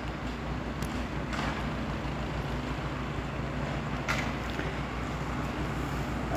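A motor vehicle engine running steadily, its low hum under an even rushing noise, with a few faint clicks.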